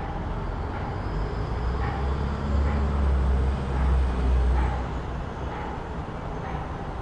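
City street traffic ambience: a steady background of traffic, with a vehicle's low engine rumble swelling as it passes between about two and five seconds in.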